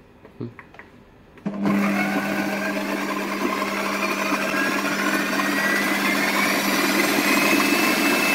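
Electric food processor switched on about a second and a half in, its motor running steadily as it purées chunks of sweet potato in a milk, cream, ghee and sugar mixture into a paste; the whine creeps slightly upward as it runs.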